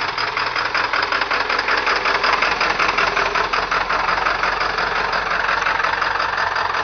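Ford 7.3L PowerStroke (International T444E) V8 turbo diesel idling rough just after a cold start, a steady rapid clatter. Bad injectors leave it missing on at least one cylinder; it doesn't sound good.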